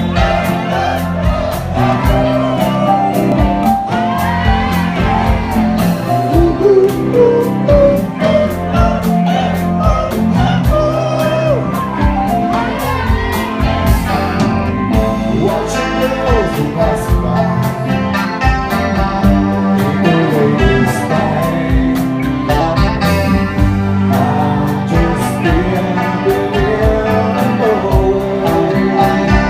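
Live rock band playing, with electric guitars, a steady beat and a male voice singing.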